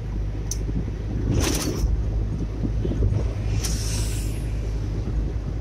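Steady low engine and road rumble inside a moving car's cabin. Two short hissing swooshes rise over it, about one and a half seconds in and again about four seconds in.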